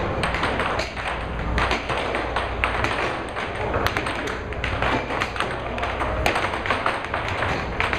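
Air hockey puck and mallets clacking in quick, irregular hits during a fast rally, with the puck banking off the table's rails, over a steady low hum.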